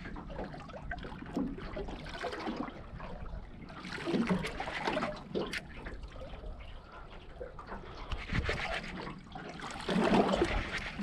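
Water sloshing and trickling around a boat, in irregular surges.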